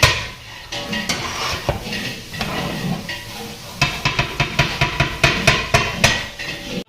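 A metal ladle stirring and scraping freshly cooked biryani in a large metal cooking pot, with repeated clattering knocks of metal on metal. The knocks come fast and close together in the second half.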